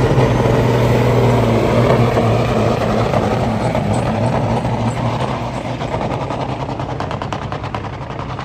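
Diesel dump truck engine at full throttle under heavy load, pulling a weight-transfer sled in a truck pull. It is a loud, steady drone that slowly fades through the second half as the truck moves off down the track.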